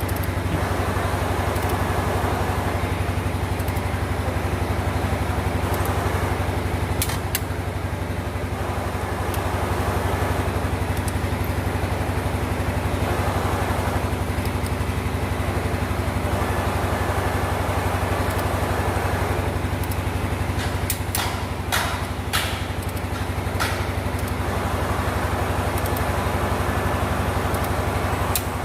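An engine running steadily in the background, with a few sharp metallic clicks about a quarter of the way in and again about three quarters of the way through.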